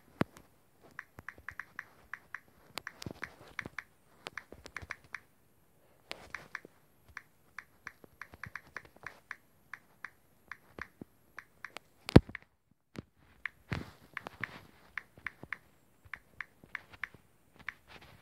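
Rapid, irregular clicking of typing on a smartphone's on-screen keyboard, several taps a second in runs with short pauses. About twelve seconds in, one sharp knock, louder than the taps, stands out.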